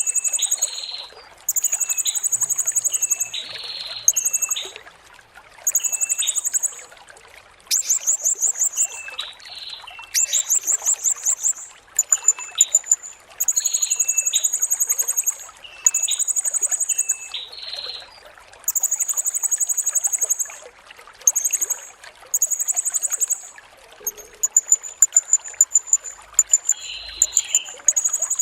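Serindit (blue-crowned hanging parrot) singing: high, shrill trilled phrases about a second long, repeated every second or two, with shorter lower chirps between them, over a steady trickle of running water.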